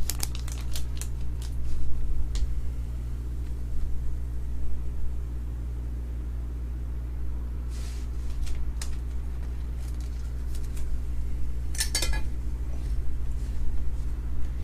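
Trading cards and their packaging being handled: scattered short clicks and crinkly rustles, with a bunch of them about 8 and 12 seconds in, over a steady low electrical hum.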